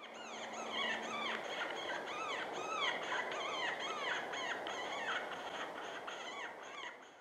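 A chorus of coyote-style yips and howls: many overlapping calls, each rising and then falling in pitch, tumbling over one another without a break, starting abruptly and fading near the end.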